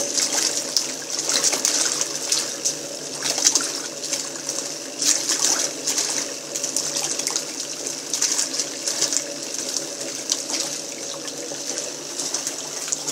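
Small plastic top-loading washing machine agitating a load of clothes in water: splashing and sloshing that swells in surges about every second and a half, over the steady hum of its motor.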